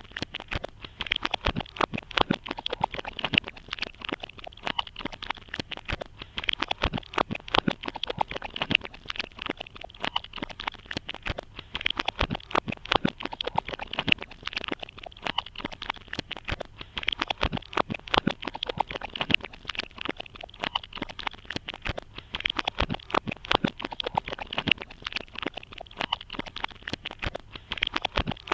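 Dense, irregular crackling: many small clicks and pops in quick succession over a faint hiss, keeping the same density throughout.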